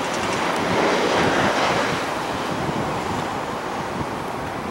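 The CFM56 engines of a Boeing 737-800 that has just landed, heard as a steady rushing jet roar as it rolls out down the runway, a little louder about a second in and then easing, mixed with wind on the microphone.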